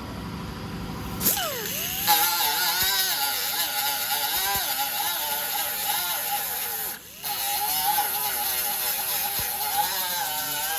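A handheld grinder starts about a second in and runs against the bodywork metal, its whine wavering up and down in pitch as it is pressed on and eased off. It cuts out for a moment about seven seconds in, then carries on.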